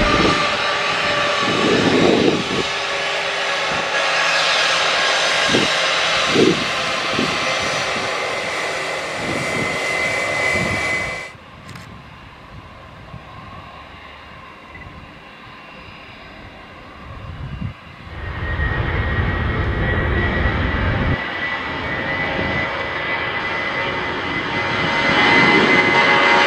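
Airbus A320 jet engines: a loud whine with a steady high tone that drops away suddenly about 11 seconds in. From about 18 seconds the engines spool up for the takeoff roll, with a low rumble and a high whine growing loud near the end.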